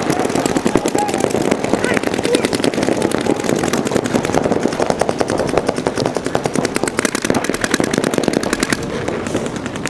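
Several paintball markers firing rapid, overlapping strings of shots without a break.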